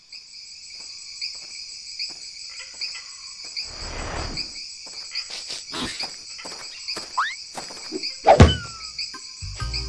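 Cartoon forest ambience of crickets chirping steadily, pulsing about once every three-quarters of a second, with scattered small clicks and a short rising squeak. A loud thump comes about eight and a half seconds in, and music begins just before the end.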